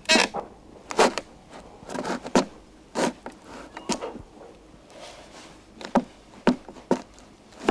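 Wood being shaved with a knife: about nine short, sharp cutting strokes at uneven intervals.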